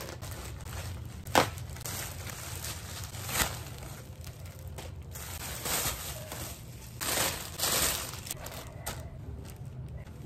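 Plastic packaging crinkling and rustling as it is handled: a black plastic courier mailer is opened and bedsheets in a clear plastic bag are pulled out. The rustling comes in irregular bursts, with a sharp snap about a second and a half in and the loudest crinkling around seven to eight seconds.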